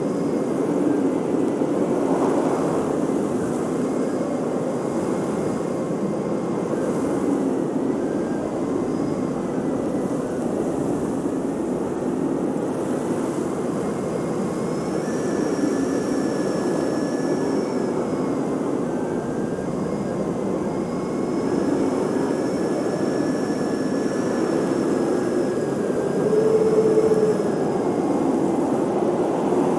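Blizzard wind rushing steadily around a house courtyard, with faint high whistling tones coming and going in the second half and a gust swelling briefly near the end.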